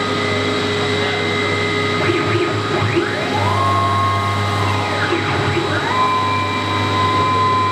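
A 1325 CNC router with rotary axis running. Its motors whine and glide up in pitch, hold, then glide down again as the axes speed up, travel and slow down, several times, over a steady high whine and hum.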